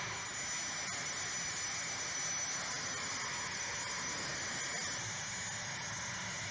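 Steady flightline machinery noise: an even hiss with a faint, high, thin whine over it.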